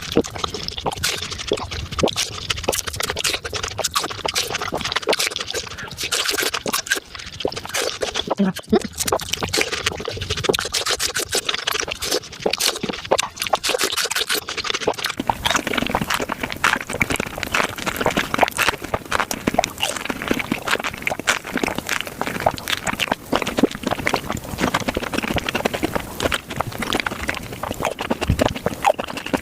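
Close-miked eating sounds of fresh fruit being bitten and chewed: a dense run of crisp crunches and wet chewing clicks, changing in texture about halfway through.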